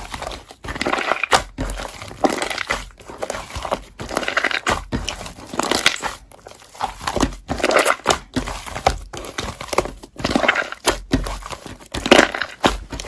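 Slime being squished and pressed by hand: a run of uneven crackly squishes, about one or two a second.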